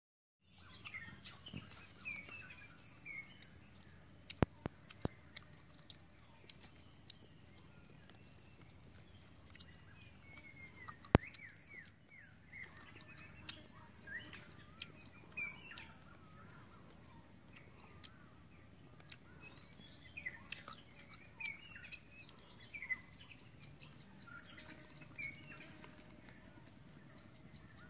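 Forest ambience: small birds chirping and calling throughout, over a steady high-pitched drone. A few sharp clicks stand out, the loudest about 11 seconds in.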